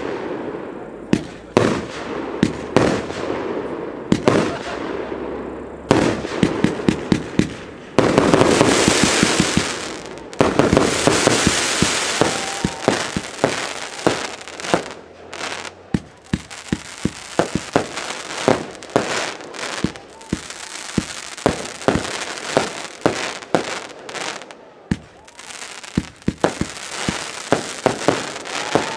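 Aerial fireworks display: a rapid string of shell and battery bursts, many sharp bangs in quick succession, with stretches of dense hissing crackle from crackling-star effects between them.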